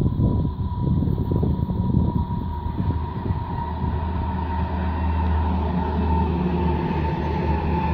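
SNCF X 76500 diesel AGC railcar coming round a curve and passing close by, its diesel engines running with a steady low hum and a thin steady high tone over the rumble of the wheels on the rails.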